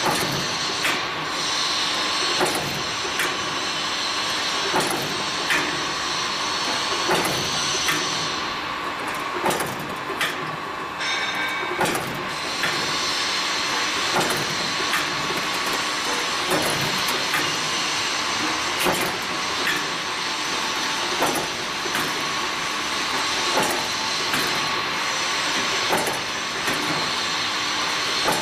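MF4311 automatic band saw blade tooth-setting machine running: a steady motor hum and hiss with a regular knock about every 0.8 seconds, the stroke of the setting head working along the blade's teeth.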